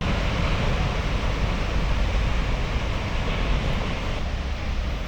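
Steady roar of big surf and wind, with a heavy flickering rumble of wind buffeting the microphone.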